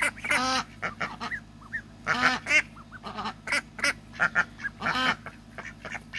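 A flock of young domestic ducks quacking repeatedly, many short calls overlapping, with a few louder, longer quacks about half a second in, at around two seconds and at about five seconds.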